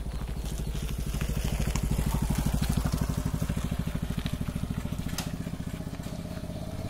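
Motorcycle engine running as the bike passes close by, a rapid steady pulsing exhaust that is loudest about two to three seconds in and then fades as it rides away.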